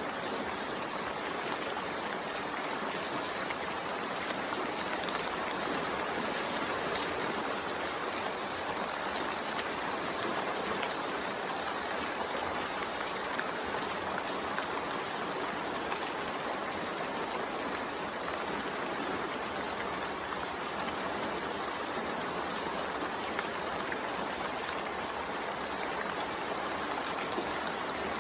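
Steady rain falling, an even, unbroken hiss with no thunder or separate drops standing out.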